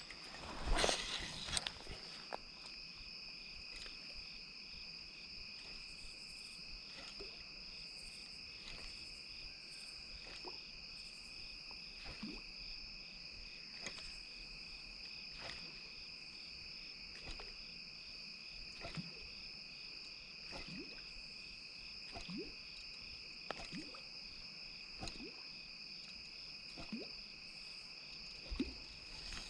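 Steady evening chorus of crickets and other insects, one of them pulsing in a regular rhythm, with faint clicks and knocks here and there and a brief louder rustle about a second in.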